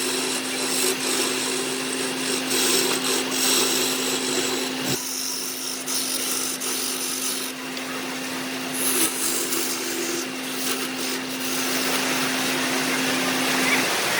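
Wood lathe running with a steady motor hum, under the uneven hiss and scrape of a tool working the spinning wood. The hum stops near the end.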